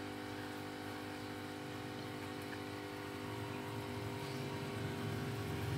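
Steady hum of a small electric motor, growing a little louder near the end.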